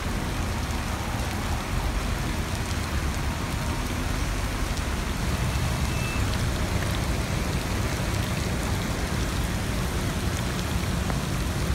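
Heavy rain pouring onto a flooded road, a dense steady splashing on the standing water, with a low rumble of road traffic underneath.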